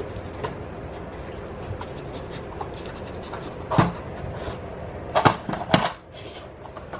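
A pit bull sniffing and panting with its nose on a plastic puzzle treat toy. Three sharp clacks come about four, five and six seconds in, as the toy is knocked about.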